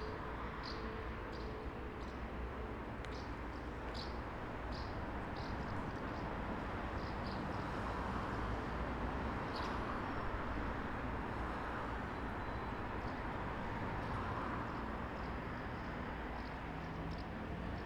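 Roadside town ambience: a steady wash of traffic noise that swells as vehicles pass around the middle, with small birds giving short, high chirps throughout.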